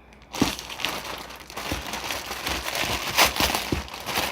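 Plastic being handled: crinkling and rustling that starts about half a second in, with a few light knocks.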